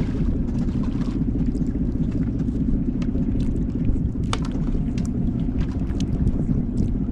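Small fishing boat's engine running steadily, a continuous low drone, with a few light clicks over it.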